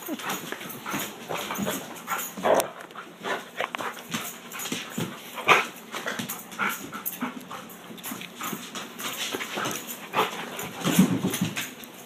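A chocolate Labrador retriever right up against the phone, licking and snuffling in quick, irregular wet smacks and clicks, with bumps from the phone being jostled. A brief low whimper comes near the end.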